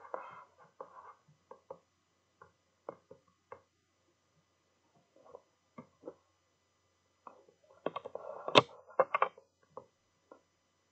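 Scattered light clicks and taps, with a louder cluster of knocks and rustling about eight to nine and a half seconds in.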